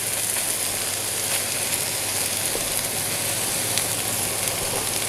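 Coconut oil and green chilli paste sizzling steadily in a hot wok as cold cooked rice is tipped in on top, with a few faint clicks of the wooden spatula against the bowl and pan.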